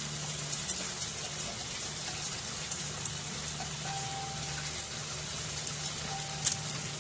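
Chicken and rice in sauce simmering and sizzling in a nonstick wok over a gas burner: a steady hiss with a low hum underneath. A light click near the end.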